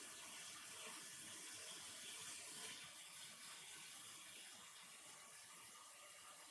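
A steady, even rushing noise with no distinct strikes or tones.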